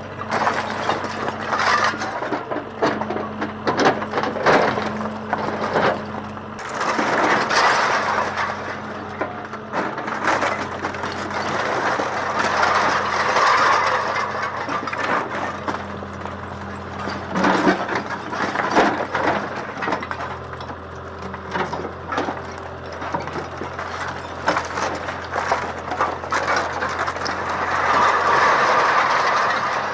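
Komatsu WB93 backhoe loader's diesel engine running steadily as its bucket pulls down an old brick-and-stone house. Masonry, timber and roof tiles crash and crack as they fall, in waves every few seconds.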